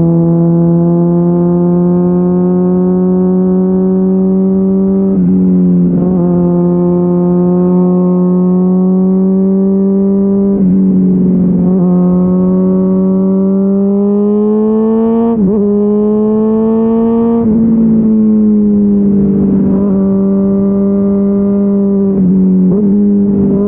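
Honda CBR600RR's inline-four engine through a GPR Deeptone exhaust with the dB-killer removed, running at steady fairly high revs. The note creeps slowly upward and dips briefly several times.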